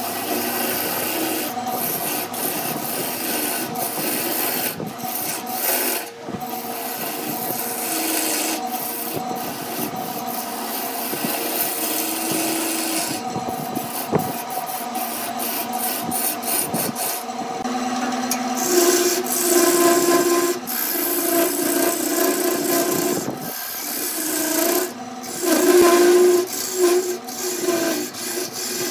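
Turning tool cutting into a spinning segmented wood vase on a wood lathe: a steady rasping scrape of the cut, with short breaks. A wavering tone comes and goes in the second half.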